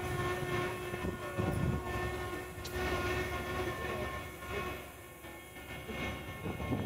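Machinery of a giant mechanical dragon running, a steady whine over a low rumble, as it moves its head. A single sharp click comes about two and a half seconds in.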